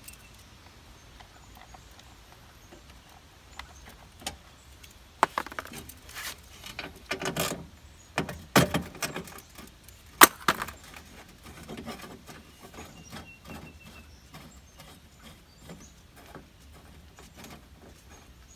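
Hand tools and metal parts clinking and knocking against the steel inner frame of a car door, with a few sharp knocks in the middle stretch and light rustling between them.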